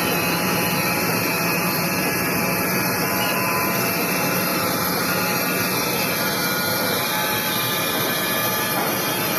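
Industrial band sawmill running, a steady dense machine noise with no pauses or strikes.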